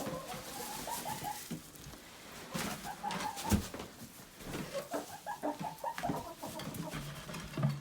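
Chickens clucking: a run of short, repeated calls, with a single knock about halfway through.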